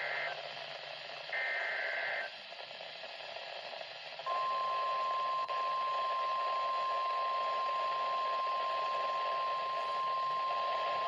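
Emergency Alert System broadcast on NOAA Weather Radio, heard through a radio receiver. In the first two seconds come two short bursts of SAME digital data tones, a buzzy warble. From about four seconds in, the steady 1050 Hz warning alarm tone plays as one long held beep, with a brief dropout just after it starts, over radio hiss. This alarm tone signals that a new warning is about to be read.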